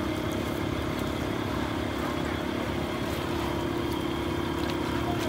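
Steady motor hum at a constant pitch and level, with a low rumble beneath it.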